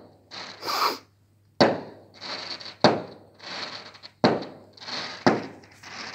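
Fireworks going off: four sharp bangs roughly a second apart, with crackling and hissing between them.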